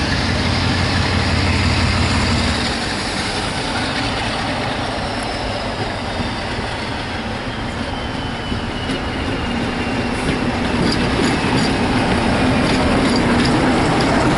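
Mainline diesel locomotive approaching and running close past with a train of coaches. Its engine is running under power, with a high whine that slowly falls in pitch and light wheel clicks over the rail joints near the end.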